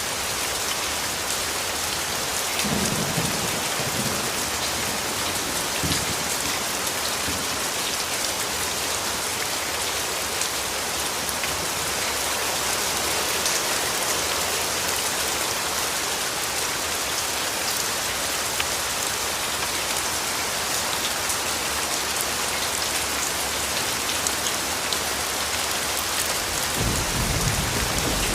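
Steady rain falling, a dense patter of drops, with low rumbles of thunder a few seconds in and again near the end.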